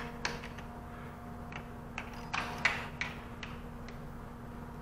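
Small clicks and rattles of cable connectors being worked loose from an HP ProLiant DL380p Gen8 server motherboard, with a quick cluster of clicks a little past halfway. A steady low hum runs underneath.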